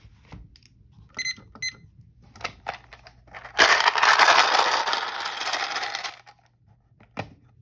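Two short beeps from a digital kitchen timer's buttons as it is set to three minutes. Then a Boggle grid is shaken hard for about two and a half seconds, the letter cubes rattling inside the plastic dome. A single knock follows near the end.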